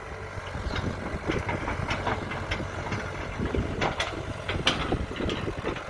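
Kobelco 07 excavator's diesel engine running steadily, with many irregular sharp metallic clanks and knocks from the working machine, the loudest a little past the middle.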